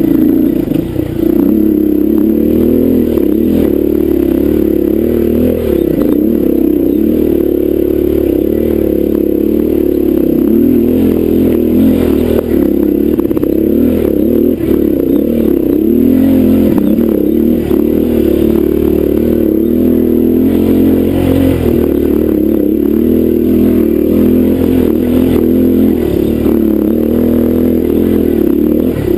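Honda dirt bike engine running steadily under load on a rough, rocky trail climb, its pitch rising and falling with the throttle.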